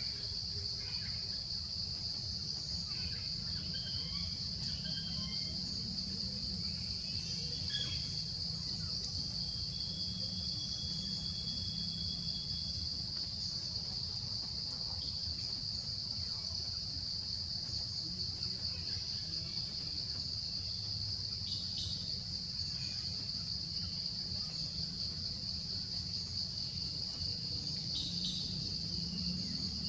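Steady, high-pitched insect chorus over a low background rumble, with a few short chirps.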